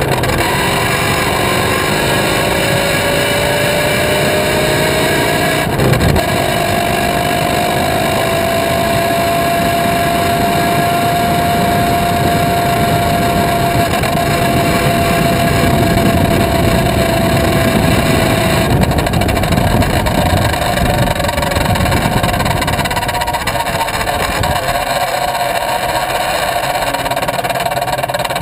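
Chain-drive motorcycle riding, heard from beside the rear wheel: the engine and drivetrain run under steady road and wind noise. A whining tone climbs slowly as the bike picks up speed, then falls away from about two-thirds of the way in as it slows. There is a single thump about six seconds in.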